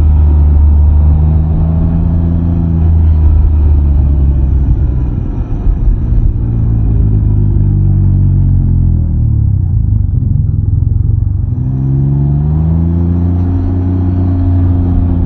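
Can-Am Ryker three-wheeler's engine running underway. It holds steady at first, then falls in pitch as the machine slows through the middle. About twelve seconds in, the pitch climbs again as it accelerates.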